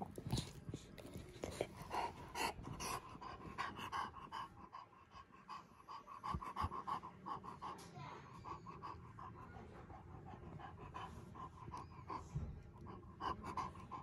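Bulldog panting heavily with its mouth open and tongue out, a fast, even rhythm of about four breaths a second.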